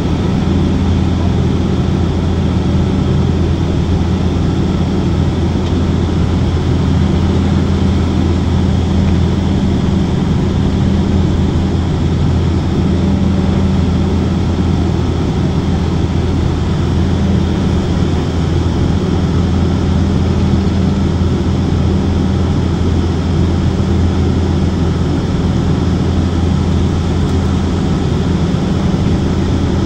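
Turboprop airliner's engines and propellers droning steadily, heard from inside the cabin: a loud, even low hum holding one pitch, under a steady rush of air.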